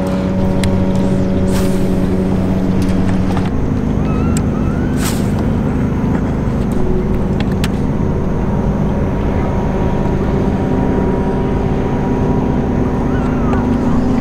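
Bass boat's electric trolling motor running with a steady hum, its pitch stepping up slightly about three and a half seconds in. A few sharp clicks and brief chirps sound over it.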